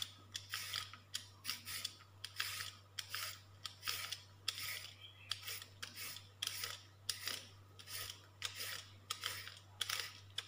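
Y-peeler scraping the skin off a raw carrot in quick repeated strokes, about two a second.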